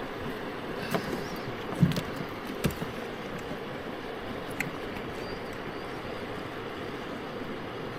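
Steady rush of flowing river water, with a few light knocks in the first three seconds.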